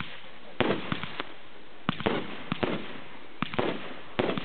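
Fireworks display: a rapid series of sharp bangs from comets and shells firing and bursting, coming in small clusters about every second over a steady hiss.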